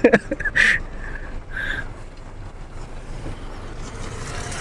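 Steady rain noise with a low hum underneath, and a few sharp clicks and two short high chirps in the first two seconds.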